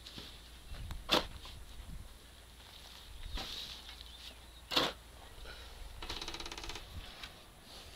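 Small metal shovel digging and scraping soil in a post hole, with two sharp knocks of the blade, about a second in and about five seconds in. A short buzzing sound follows about six seconds in.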